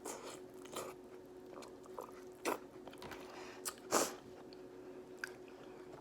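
Close-miked chewing and biting of seafood-boil food, with several short, sharp crunches and clicks spread through, the loudest about four seconds in.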